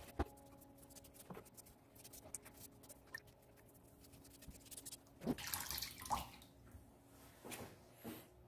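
Wet sponge rubbing and dabbing over a rough ceramic surface, with water dripping back into a bowl. The sound is faint, with small wet clicks and a few louder rubs between about five and six seconds in and again near the end.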